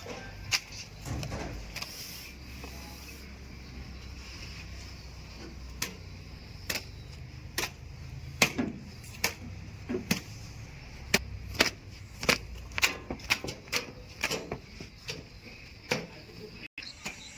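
Irregular sharp clicks and knocks, a few a second, over a low steady machine rumble.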